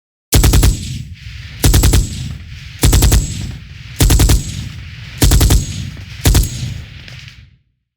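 Machine gun firing six short bursts of rapid shots, a little over a second apart, each dying away in an echo.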